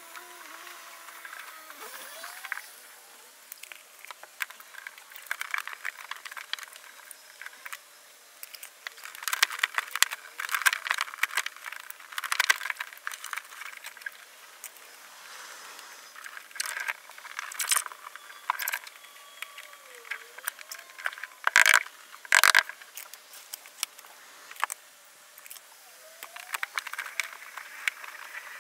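Crinkling, scraping and clicking of foil-backed butyl sound-damping mats being handled and pressed onto a sheet-metal car panel. The crackles come in irregular clusters, loudest in bursts around the middle and shortly after two-thirds of the way through.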